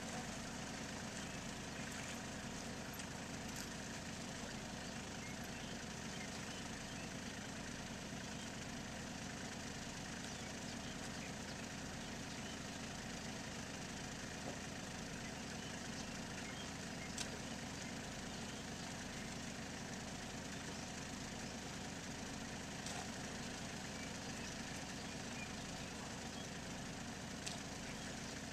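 Small farm tractor engine idling steadily, with a few faint clicks.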